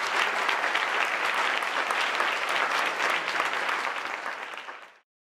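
Audience applauding, a dense, steady clapping that fades and then cuts off abruptly about five seconds in.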